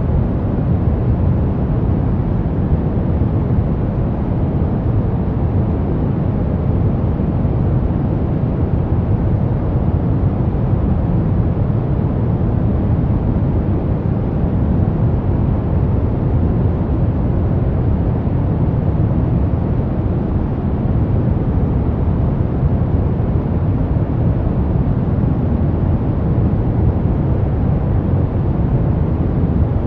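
Brown noise: a steady, even rumbling hiss weighted towards the low end, with no changes or events.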